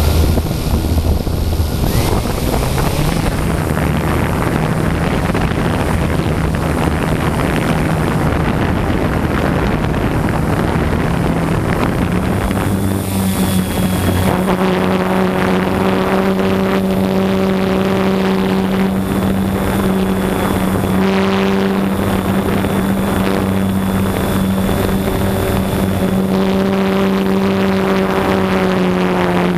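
Multirotor quadcopter's electric motors and propellers running loud and close, heard from the camera on board as it lifts off and flies. It is a steady hum over a rush of noise, and the pitch steps up a couple of seconds in and again about 12 seconds in as the motors speed up.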